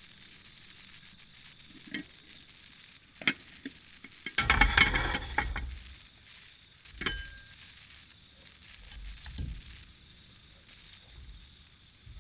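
Cooking sounds from a hot pan: a few light utensil clicks, then a louder stretch of sizzling and scraping a little over four seconds in, as the teriyaki chicken is stirred.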